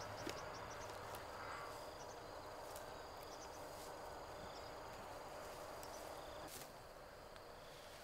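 Steady insect chirring in the field, with a few faint clicks and rustles scattered through it and one sharper click late on.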